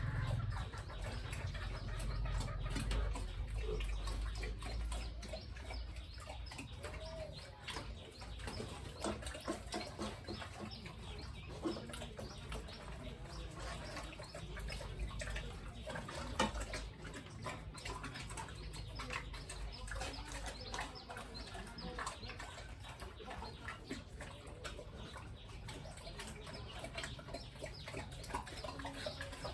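Chickens clucking amid many small clicks and knocks, with a low rumble over the first several seconds.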